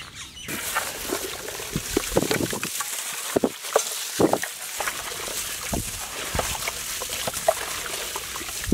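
Gloved hands squelching and sloshing raw chicken drumsticks through a thick yogurt marinade in a large metal pot, with many irregular wet squishes and slaps.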